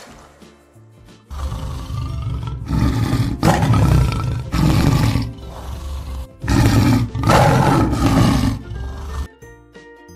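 A tiger roaring several times in long, deep bursts over background music.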